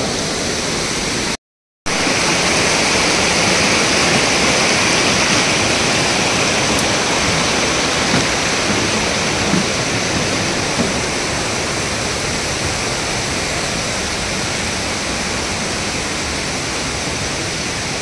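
Steady rushing of a rocky stream's white water pouring over boulders, unbroken except for a brief cut-out about a second and a half in.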